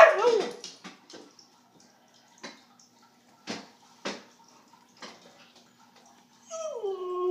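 A loud noisy burst at the start and a few scattered knocks and clicks, over a faint steady hum; about six and a half seconds in, a Siberian husky starts a drawn-out talking howl that bends up and down in pitch.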